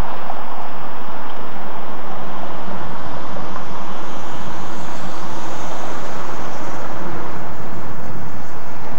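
Steady city traffic and street noise, recorded through a VHS camcorder's built-in microphone.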